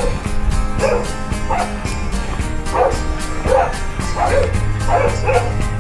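Chow Chow puppies yipping and barking in short, repeated yelps, over background music with a steady beat.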